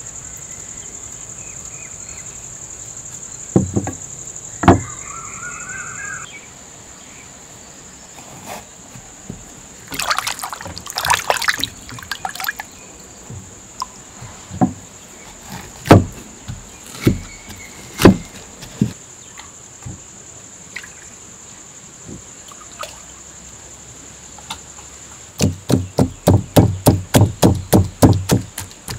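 A wooden pestle pounding star fruit pulp in a muslin-lined clay pot, a fast run of even thuds about three or four a second near the end. Before it come scattered single knocks and liquid trickling as ripe star fruits are squeezed through the cloth. A steady high insect drone runs through the first six seconds.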